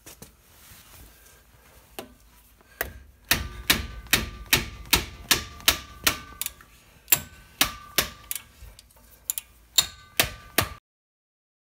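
Ratchet wrench clicking about three times a second as an 18 mm brake caliper bracket bolt is loosened, with a faint metallic ring. It cuts off suddenly near the end.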